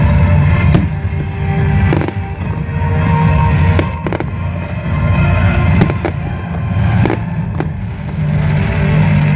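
Fireworks going off, several sharp bangs at irregular intervals, over loud music with a heavy bass line playing throughout.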